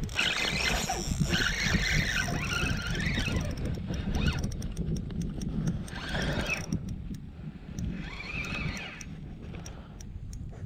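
Wind rumbling on the microphone while a spinning reel is cranked to bring in a largemouth bass. Short high squeaky whines come and go three times.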